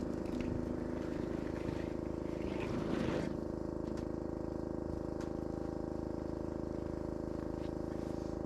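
A motor running steadily at one constant speed, with a few faint clicks in the first second.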